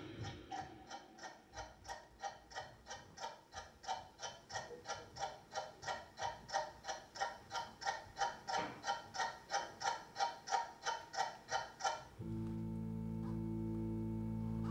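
Steady mechanical ticking, about three ticks a second, each tick with a short pitched ring. About twelve seconds in the ticking stops and a held low chord starts.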